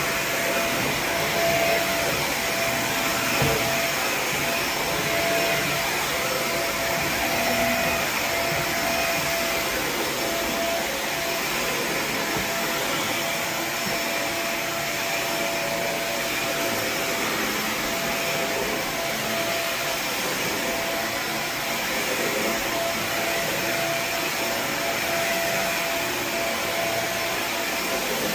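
Four-jet titanium carpet-cleaning wand running steadily, with the steady rush of vacuum suction and a thin whistle held at one pitch.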